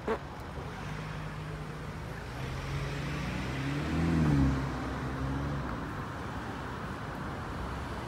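A motor vehicle passing on a nearby road, its engine hum rising in pitch and loudness to a peak about four seconds in and then falling away, over a steady background of traffic noise. A single short knock right at the start.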